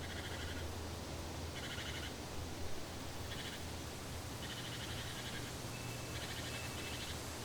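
About five short, high, buzzing animal trills, spaced a second or two apart, over a steady low hum.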